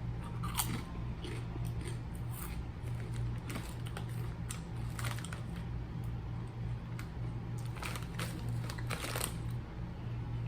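Crisp potato chips being chewed up close, with irregular sharp crunches over a steady low hum.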